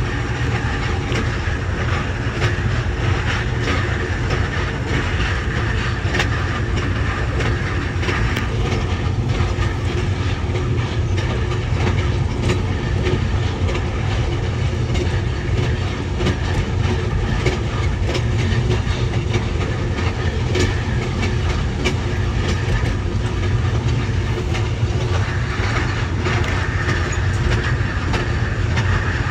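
Ride noise of the moving Amtrak Southwest Chief passenger train heard from inside the car: a steady low rumble with scattered light clicks of the wheels over the track.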